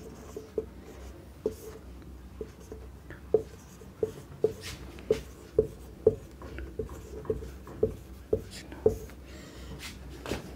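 Marker pen writing on a whiteboard: a run of short, sharp taps and squeaks, one for each stroke of the letters, coming irregularly about once or twice a second.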